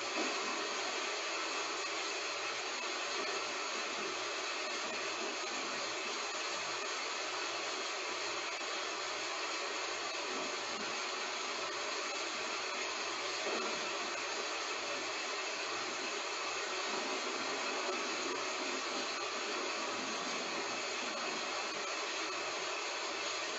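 Steady heavy rain, an even hiss with no thunder.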